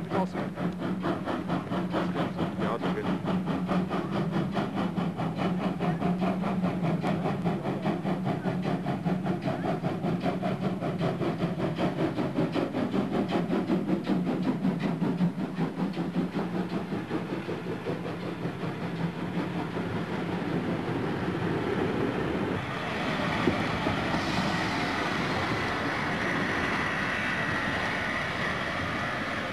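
Steam locomotive running past with a rapid, even rhythm of beats and clanking. About two-thirds of the way through the sound changes to a steadier hiss.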